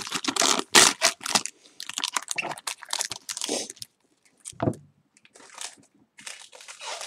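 Foil trading-card pack wrapper crinkling as it is torn open and handled, dense for the first four seconds, then sparser rustles with a soft thump about four and a half seconds in.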